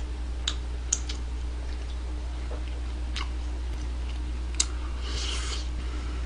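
A man eating fried chicken with his hands: scattered wet mouth clicks and smacks, the sharpest a little past four and a half seconds in, then a short crunchy burst of biting and chewing about five seconds in.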